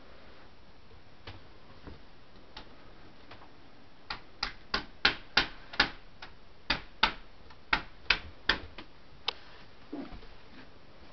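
A run of about a dozen sharp clicks or light knocks, roughly three a second and unevenly spaced, starting about four seconds in and stopping after about five seconds. A softer, duller knock comes near the end.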